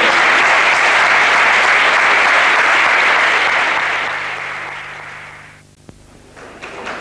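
Audience applauding in a hall, fading away over the last few seconds.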